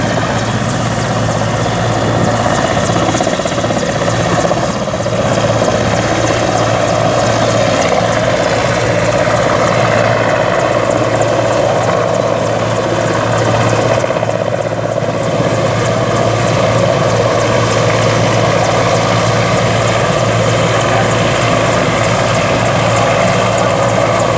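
Helicopter rotor and engine: a loud, steady din that holds unbroken throughout.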